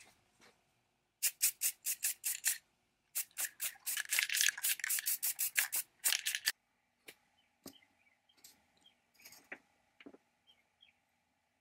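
Aerosol spray-paint can spraying: a quick run of short hissing spurts, then after a pause more spurts merging into a steady hiss that stops about six and a half seconds in. Faint light clicks and taps follow.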